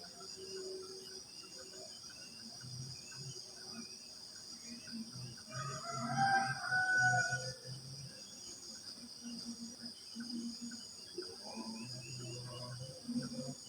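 Morning nature ambience: a steady high chorus of crickets with birds calling over it, and one louder drawn-out call of about two seconds around six seconds in.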